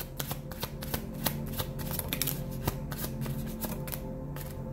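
A deck of tarot cards being shuffled by hand: a quick run of crisp card snaps that thins out about four seconds in.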